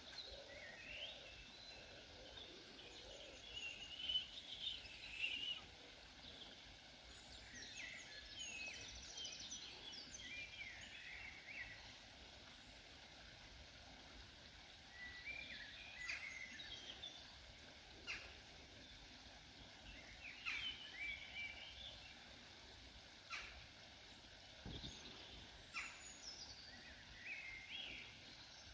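Canada geese and their nearly grown goslings calling with short, high peeps and whistles that come in scattered clusters, over a faint outdoor background.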